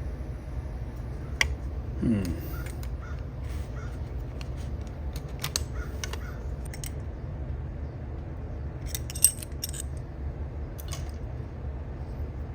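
Scattered small clicks and taps of metal and plastic as the HVAC control panel's spring-steel lever clamp is bent and handled, over a steady low hum. The sharpest click comes about nine seconds in.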